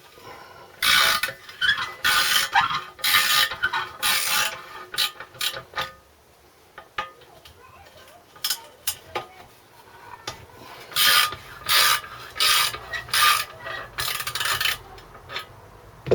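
Hand ratchet wrench clicking in quick back-and-forth strokes as bolts on a small engine's muffler are undone, in two runs of about four strokes each, with a pause between.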